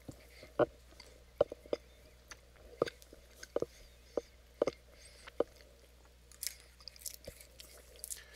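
A person chewing a crunchy chip: a string of sharp, irregular crunches, about one every half second.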